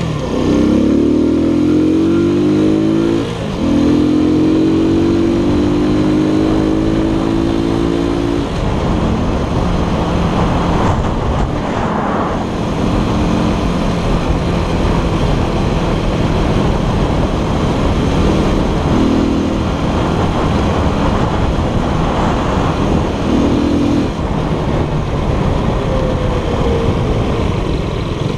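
Keller Crono 110 scooter's 110 cc engine accelerating, its pitch climbing over the first three seconds, then holding a steady higher note. After about eight seconds it settles to a lower, steady note under a heavy rush of wind on the microphone, with a few short rises in engine pitch.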